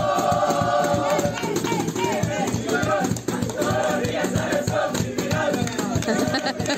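A group of young people singing together in chorus, with a steady percussion beat.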